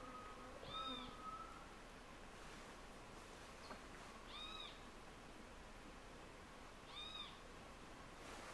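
Faint animal calls: three short high notes, each rising then falling, about three seconds apart.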